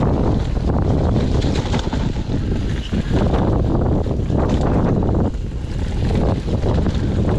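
Wind buffeting the microphone during a fast mountain bike descent, over the rolling noise of tyres on a dirt trail strewn with dry leaves, with frequent small clicks and knocks from the bike over the bumps.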